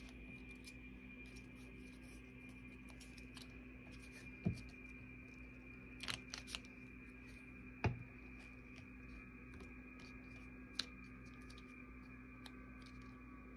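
Paper being handled on a tabletop: a few soft taps and rustles, spread out with long gaps, over a steady faint electrical hum.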